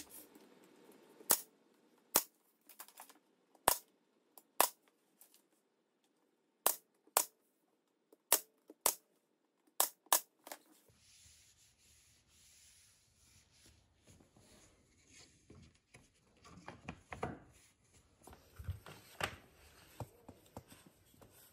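A dozen or so sharp, short cracks at uneven spacing, some in quick pairs and triplets, as the wooden floor transition strip is fastened down. After that come softer knocks and rubbing from handling on the wood floor, a little louder near the end.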